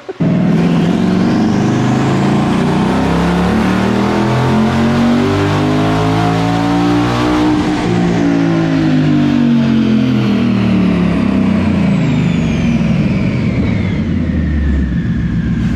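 Twin-turbocharged 5.0 Coyote V8 of a Mustang GT running a full-throttle pull on a chassis dyno: the revs climb for about the first seven seconds, then fall away as it comes off the throttle and winds down, with a high whine sliding down in pitch as it slows.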